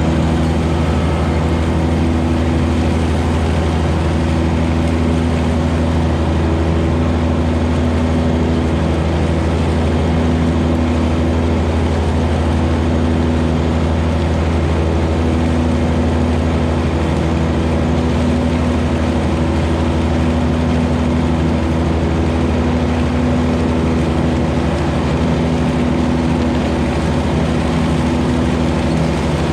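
John Deere 1025R compact tractor's three-cylinder diesel engine running at a steady speed, an even low hum with no change in pitch.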